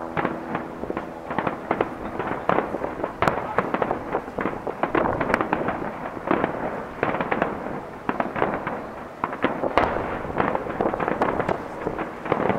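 Aerial firework shells bursting in a rapid, continuous barrage: overlapping bangs and crackles, several a second. The barrage eases briefly about eight to nine seconds in, then picks up again.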